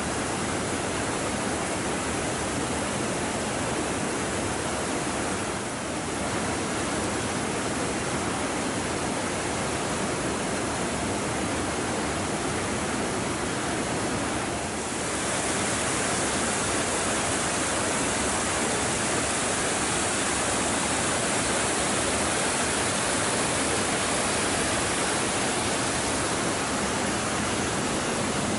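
Water pouring over a weir: a steady rushing roar, turning brighter and hissier about halfway through.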